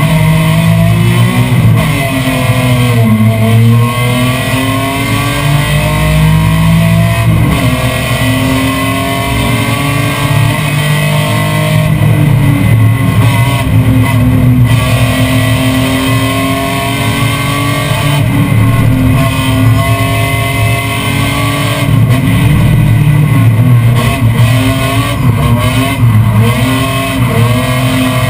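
BMW M3 race car's engine heard from inside its stripped, roll-caged cabin, working hard through a series of bends. The revs repeatedly climb and drop as the driver brakes, shifts and accelerates.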